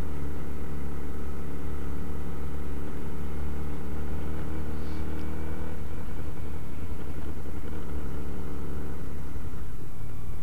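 Motorcycle engine running steadily while riding along a street, heard from the rider's own bike; the engine note changes about six seconds in and again near nine seconds.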